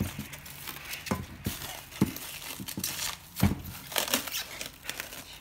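Plastic cling film crinkling as it is stretched and pressed around the rim of a steel bowl, with a few sharp light knocks.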